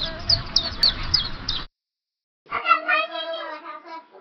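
Cartoon 'seeing stars' sound effect: birds tweeting in quick falling chirps over a hiss, which cuts off suddenly. After a short gap, a squeaky, pitch-shifted cartoon voice starts.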